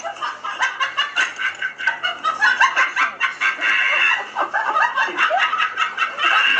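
Rapid, choppy cackling like a clucking hen, many short chirps a second without a break, laid over the scene as a comedy sound effect.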